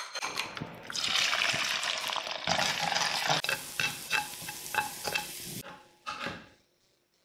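Beaten eggs sizzling in hot oil in a wok, starting about a second in, while a spatula stirs and scrapes them with many sharp clicks against the pan. The sizzle stops a little after halfway, and there are a few knocks near the end.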